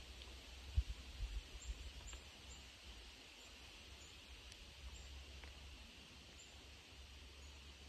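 Faint forest ambience: a steady hiss with small high bird chirps every half second or so, and a few brief low rumbles on the microphone about a second in.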